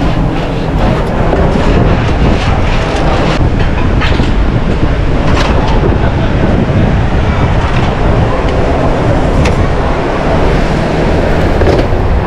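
Steady loud rumble of a busy restaurant kitchen line, with a few sharp clinks of metal utensils on pans and trays.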